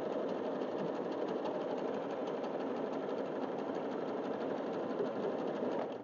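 Yamata FY-930 portable electric sewing machine running steadily at speed, its needle stitching through fabric in a fast, even rhythm; it stops right at the end.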